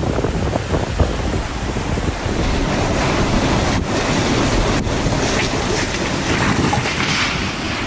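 Storm noise: wind buffeting the microphone over a steady rushing roar of water, with a couple of brief dropouts in the middle.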